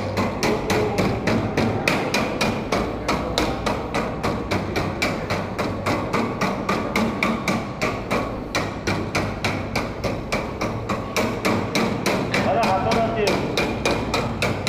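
Rapid, evenly spaced hammer-like knocks, about five a second, going on without a break, with faint voices behind them near the end.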